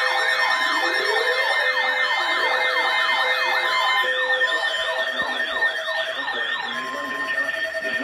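Several electronic sirens sounding together: a fast yelping warble up high over repeated falling wails, with a few steady tones mixed in. The high warble stops about seven seconds in.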